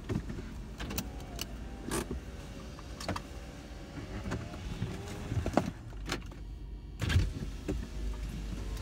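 Inside a stopped car: a steady low rumble with scattered sharp clicks and knocks, and a faint wavering whine that comes and goes.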